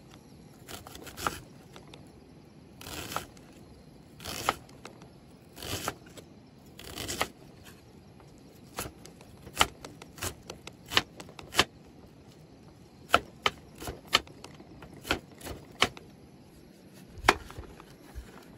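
A blade chopping on wood: sharp, irregular strikes, about one or two a second, with a few longer, softer noisy sounds between them in the first half.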